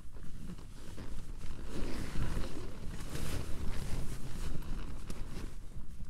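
Strong wind gusting against a tent, heard from inside: a low rumble that swells and eases, with the tent fabric flapping and snapping many times.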